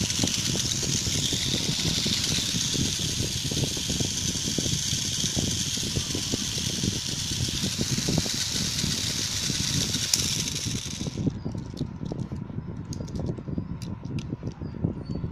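A Tamiya Mini 4WD car's small electric motor and gears running with a steady high whir, which stops abruptly about eleven seconds in. Then come scattered sharp plastic clicks over rustling handling noise.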